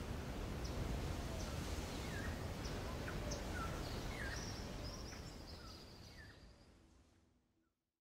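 Woodland ambience of small birds chirping in short calls over a low steady rumble, fading out near the end.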